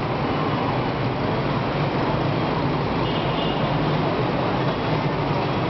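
Busy city street traffic, mostly small motorbikes and scooters with some cars, making a steady, continuous din.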